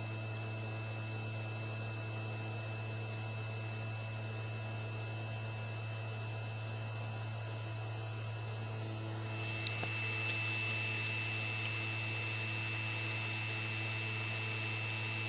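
CNC router running a carving job, its 110 V DC spindle motor spinning with a steady hum and whine. About nine seconds in a higher-pitched whine joins and holds, with a single click just before ten seconds.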